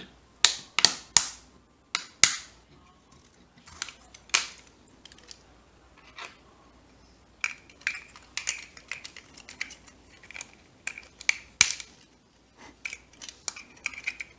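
Sharp plastic clicks and cracks from a 3D-printed twist-lock clamp being worked by hand and a crushed bottle cap being pried from its jaws. Several loud clicks come in the first two seconds or so, then a quicker run of smaller crackles.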